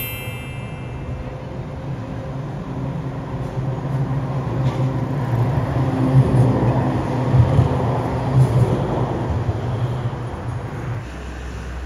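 A large vehicle passing close by: a steady low motor hum that grows louder through the middle and fades away near the end.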